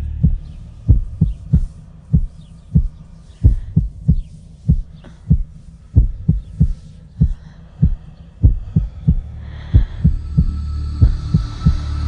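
Film soundtrack: a heartbeat-like double thud, low and sharp, repeating regularly about twice a second. Under it is a low steady drone that drops away at the start and comes back near the end with faint high tones.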